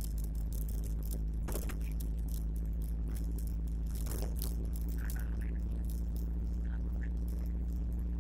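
A moving vehicle heard from inside: a steady low engine and road drone with frequent rattling clicks on the rough road surface.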